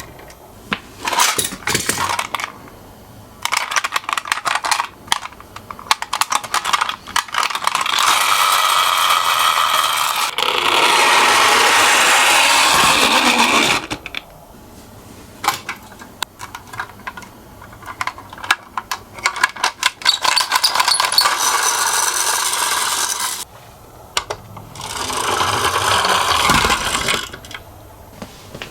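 Toy minicars rolling down a slope: long spells of rattling, scraping wheel noise, with scattered clicks and knocks between them.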